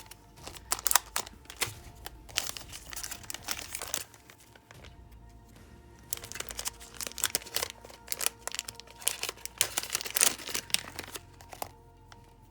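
Crinkling of packets of nail-art supplies as they are handled, in clusters of sharp crackles with a lull of about two seconds near the middle. Soft background music runs underneath.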